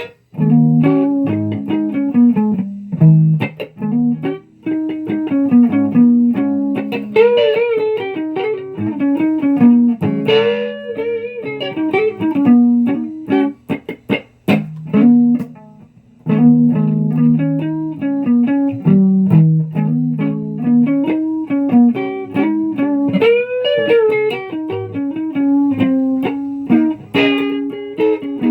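A guitar played alone: a run of single plucked notes and short phrases, some notes bent up and down in pitch, with a short pause about halfway.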